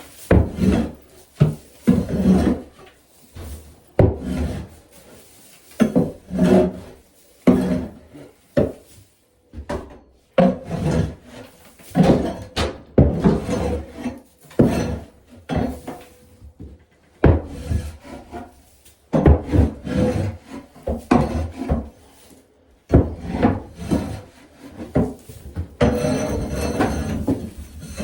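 Garden tool scraping over the wooden boards of a chicken coop, clearing out droppings and old bedding, in many irregular strokes with a steadier run of scraping near the end.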